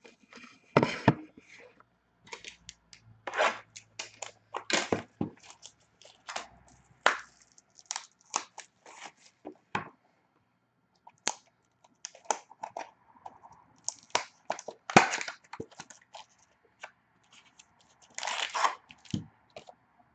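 Plastic wrapping on a sealed trading-card box being torn open and crinkled, in irregular crackling rips and rustles.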